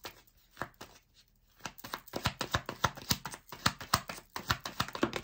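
A tarot deck being shuffled by hand, packets of cards dropping and slapping onto each other in quick clicks. The clicks are sparse at first and come thick and fast from about two seconds in.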